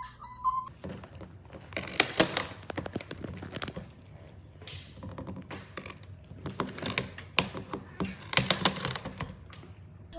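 A run of irregular knocks, taps and clatter, bunched about two seconds in and again near the end.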